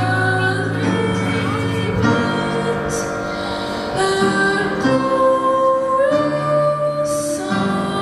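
A boy singing into a microphone, holding long notes that change about every second, over a soft instrumental accompaniment.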